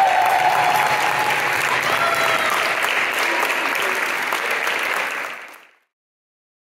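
Audience applauding, fading out to silence a little over five seconds in.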